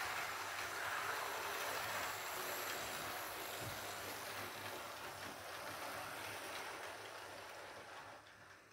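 Model Class 312 electric multiple unit running on a curved model railway track, its motor and wheels on the rails making a steady rushing noise that fades away near the end.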